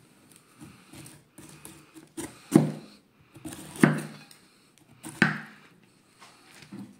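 Chef's knife slicing the peel off a whole pineapple in downward strokes. The blade knocks on the wooden cutting board three times, a little over a second apart, with softer cutting and scraping sounds between.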